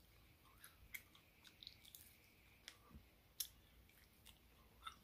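Faint close-up chewing and biting of a fried pork chop, heard as scattered soft clicks and smacks of the mouth.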